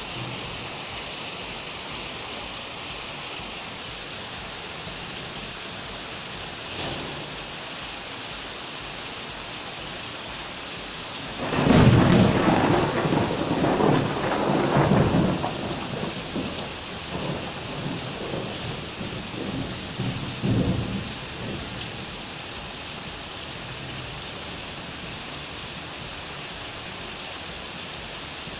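Steady rain hissing during a thunderstorm. A faint roll of thunder comes about seven seconds in. A loud thunderclap about twelve seconds in rumbles on in several waves for around ten seconds before dying away.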